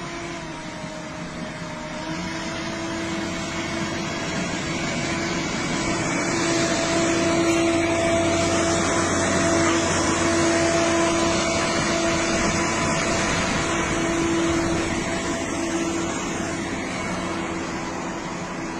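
Vehicle engine running with a steady hum over a rushing noise, growing louder through the middle and easing off near the end.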